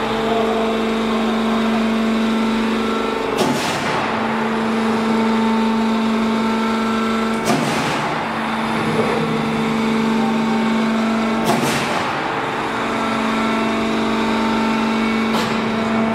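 Steel C-frame roll forming machine running with a steady hum, cut about every four seconds by a sharp press stroke, four in all.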